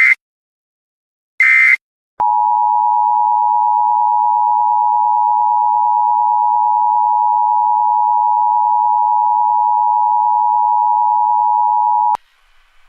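Emergency Alert System tones: a short burst of the digital header data at the start and another about a second and a half in, then the two-tone attention signal, a loud steady dual tone held for about ten seconds and cut off abruptly.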